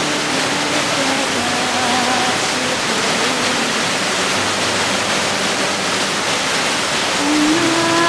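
Water of a small mountain-stream waterfall pouring over rocks into a pool, a steady rushing. A soft melody runs faintly beneath it and grows louder near the end.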